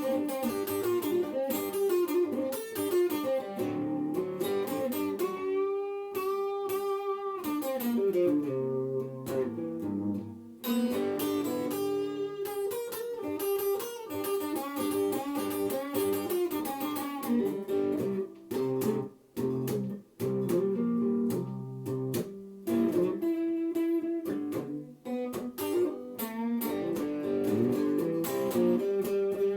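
Slow blues guitar solo: single-note lines with bent notes, played between sung verses.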